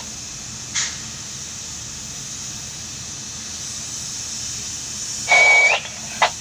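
Steady hiss inside a jib crane's operator cab, broken by short two-way radio squawks: a brief crackle about a second in, then a louder half-second burst with a steady beep-like tone near the end, ending in a click.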